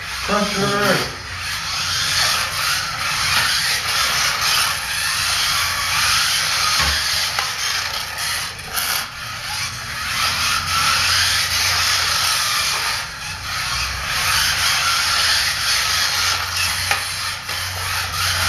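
Kyosho Mini-Z electric RC cars running laps: a whirring hiss of small motors, gears and tyres on the mat that swells and fades as the cars come and go.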